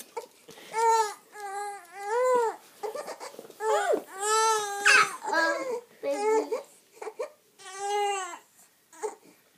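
Young infant crying in a series of about five wavering wails with short breaks between them. The cries stop near the end as a pacifier goes into her mouth.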